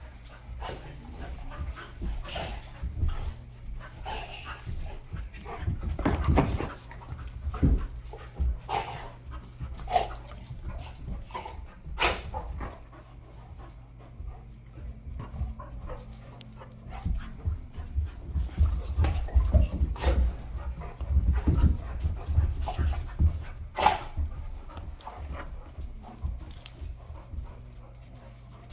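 Two dogs play-fighting: panting, scuffling and bumping, with brief sharp sounds now and then.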